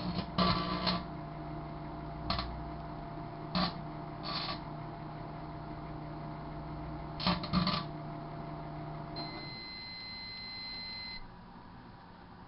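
Sharp Carousel microwave oven humming as it runs, with several short crackles of sparking and arcing from the condoms and their packets inside. About nine seconds in the hum stops and the microwave gives one long beep, about two seconds, at the end of its cycle.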